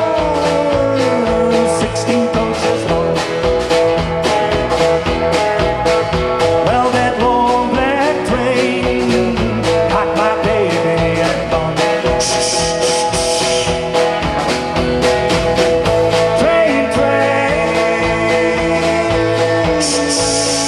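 Live band playing: acoustic and electric guitars, bass guitar and drums with a steady driving beat, under a sung lead vocal. Cymbals wash over it twice, about twelve seconds in and near the end.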